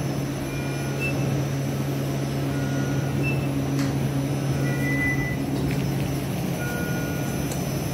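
Steady low electrical hum of cath lab equipment, with short electronic monitor beeps at several different pitches every second or so, one a little longer about five seconds in, and a few faint clicks.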